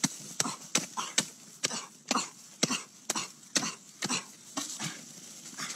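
Short-handled hoe chopping and scraping into dry earth, repeated sharp strikes at about two a second, some trailing into a brief gritty scrape of loosened soil, as a burrow is dug open.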